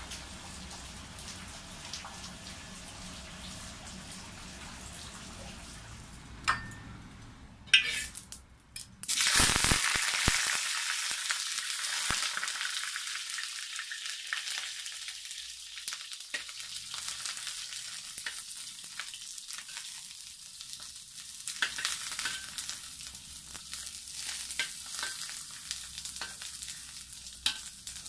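Eggplant strips shallow-frying in oil in a wok: a loud sizzle starts suddenly about nine seconds in as the eggplant hits the hot oil, then eases to a steady sizzle, with a metal spatula scraping and tapping against the wok. Before that there is a steady low hum and a couple of sharp knocks.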